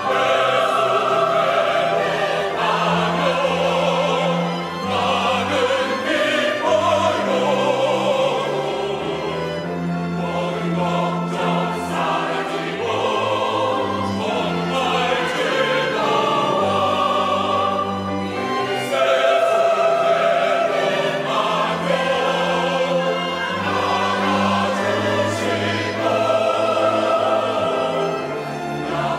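Mixed church choir of men and women singing a hymn in Korean, accompanied by a string ensemble of violins and cellos.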